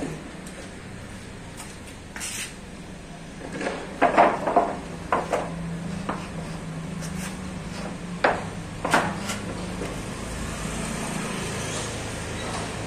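Wooden fence planks knocking and clattering against each other as they are set down and stacked, a cluster of the loudest knocks about four seconds in and a few more later. A low steady hum runs underneath.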